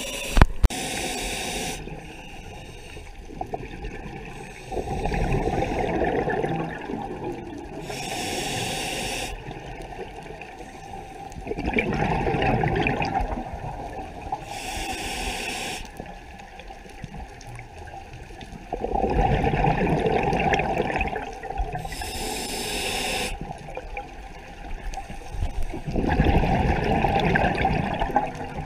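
Scuba diver breathing through a regulator underwater: a short hiss on each inhale, then a longer rumble of exhaled bubbles, repeating about every seven seconds, four breaths in all. Two sharp knocks about half a second in.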